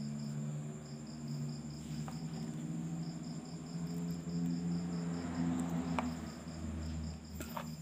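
A cricket chirping in rapid, evenly pulsed trills over a low steady hum, with the soft scraping of a plastic spoon stirring crumbly bait in a plastic bowl and two light clicks, about two seconds and six seconds in.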